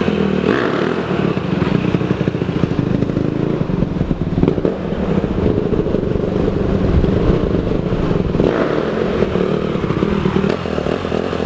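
Dirt bike engine running close by, steady throughout.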